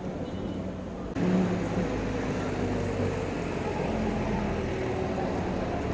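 Steady street background noise with faint distant voices in it; it gets louder about a second in and then holds even.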